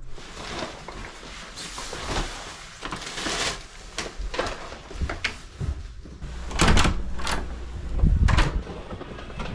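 Rustling and knocking as gear is handled, then a hotel room door opening, with two heavy thuds near the end.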